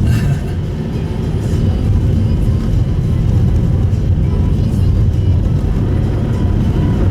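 Steady low road rumble inside the cabin of a Subaru Impreza Sport (GP7) driving on a snow-covered road, mostly tyre and road noise with the engine underneath.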